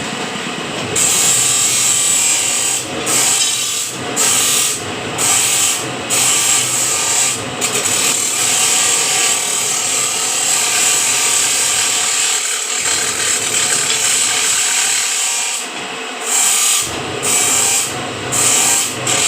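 Band saw cutting a steel square bar: a steady rasping hiss of the blade over the hum of the machine, with the hiss dropping out briefly several times.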